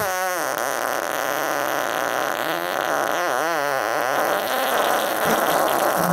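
A long, drawn-out fart: a continuous rasp with stretches of wavering tone near the start and again around the middle.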